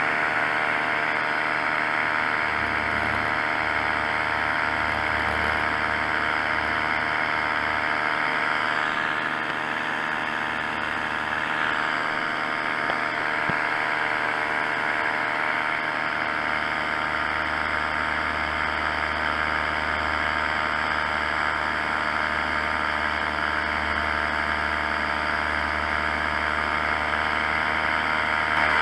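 Paramotor engine and propeller running steadily in flight, a dense engine drone that eases off slightly about ten seconds in.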